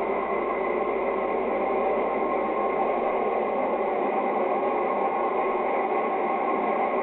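Steady running noise of a Sprague-Thomson Paris Métro train heard from inside the car: an even whir with faint steady tones through it.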